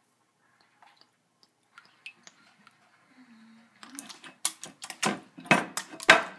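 Hot sauce bottle shaken upside down over a glass pie dish, the sauce spattering onto cream cheese. Near silence gives way about four seconds in to a quick, irregular run of sharp clicks and splats.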